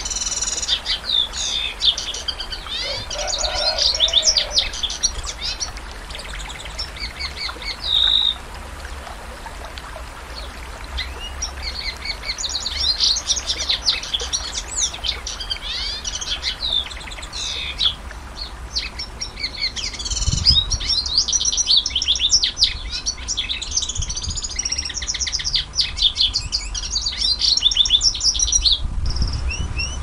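Canary singing: long runs of rapid, high trills and chirps, thinning out for a few seconds about a fifth of the way in before building again.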